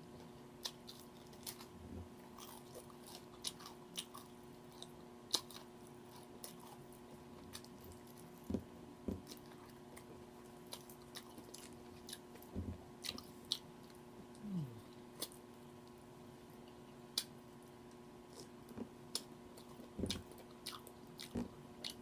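Close-up eating sounds: crunching and chewing on crispy fried chicken, with scattered sharp crunches and mouth clicks, over a faint steady electrical hum.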